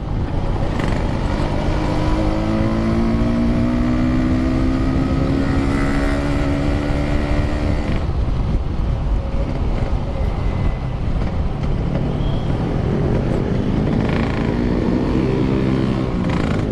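Yamaha RX-King's two-stroke single-cylinder engine pulling hard on the move, heard from the bike with heavy road and wind rumble. Its pitch climbs for several seconds, drops away sharply once, and climbs again near the end.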